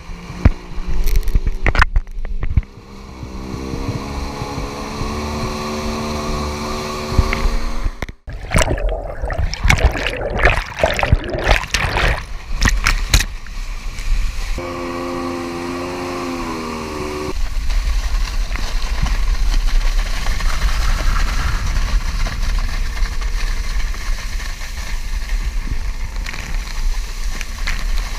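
Kawasaki STX1100 jet ski's three-cylinder two-stroke engine winding up as it pulls a water skier out of the water, the pitch rising for a few seconds. Then comes a stretch of heavy splashing and spray, a few seconds of steady engine tone, and from about halfway on a steady rush of water and wind on the microphone as the skier is towed along.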